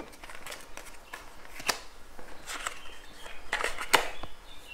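Oracle cards being turned over and laid down on a wooden table: scattered light taps and soft slides, with a cluster of clicks about three and a half seconds in.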